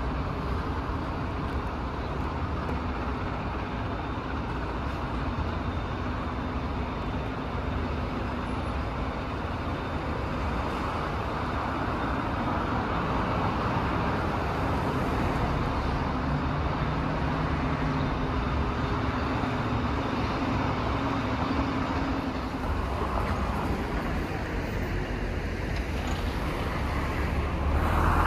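Steady city street traffic: cars and other motor vehicles running and passing, with low engine tones coming and going.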